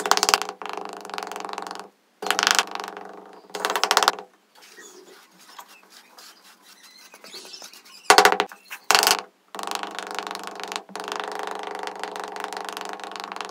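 A small metal scraper blade scraping and levelling sand in strokes that start and stop. A quieter stretch of brushing over the sand comes in the middle.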